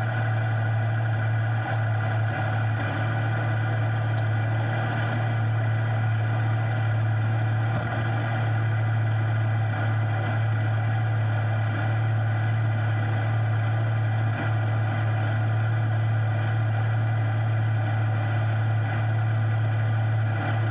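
Off-road vehicle engine idling steadily, a constant low hum that stays level throughout.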